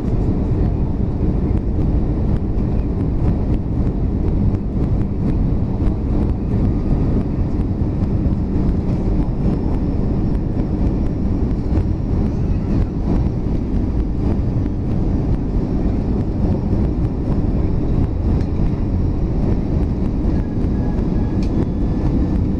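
Cabin noise inside an Airbus A319 descending on approach: a steady low rumble of the engines and rushing air, heard from a window seat beside the engine, with a faint high whine over it.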